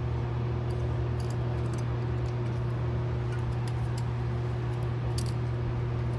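Steady low hum of background machinery, with a few faint small clicks of metal carburetor parts being handled: about a second in, a little later, and again near the end.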